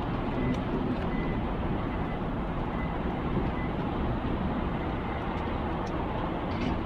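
Steady rushing wind noise buffeting the microphone outdoors as a thunderstorm approaches, heaviest and most irregular in the low end.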